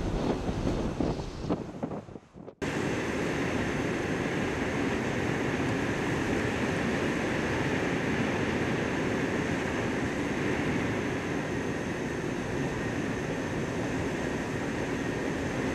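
Blizzard wind, 50-60 mph gusts, buffeting the microphone at first, then after a brief drop-out about two and a half seconds in, a steady, even roar of wind.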